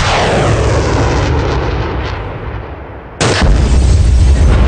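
A missile streaks away with a whoosh that falls in pitch and fades. About three seconds in a loud explosion goes off and rumbles on deeply.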